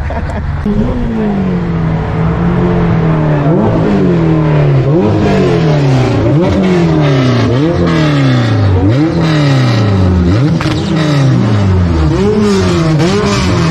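A car engine revved over and over in quick throttle blips. Each rev shoots up sharply and falls away over about a second, about eight or nine times in a row.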